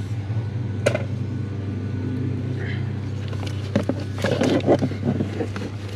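Handling noises from fitting a replacement blower motor under a pickup's dashboard: a sharp click about a second in, then a run of plastic knocks and rattles between about four and five and a half seconds, over a steady low hum.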